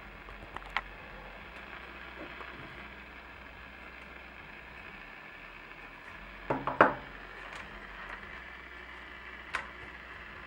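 Realistic Navaho TRC-431 CB radio buzzing steadily through its speaker, with a few sharp clicks and the loudest cluster of them about two thirds through. The buzz is interference from a scanner's AC adapter on the same power strip, which measured 18.9 volts instead of 12.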